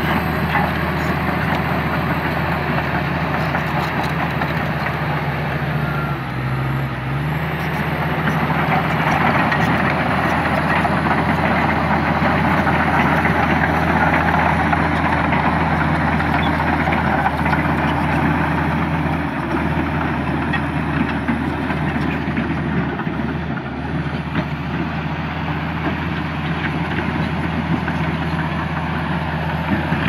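Komatsu D85E-SS crawler bulldozer's diesel engine running under steady load, with the clatter of its steel tracks and the scrape of earth and rock pushed by the blade. The engine note dips briefly about six seconds in.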